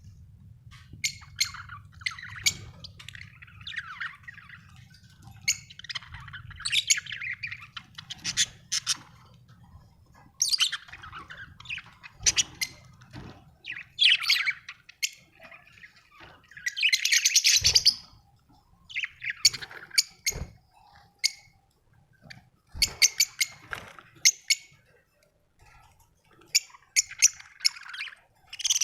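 Budgerigars chirping in short, scattered calls, with a longer harsh call about seventeen seconds in.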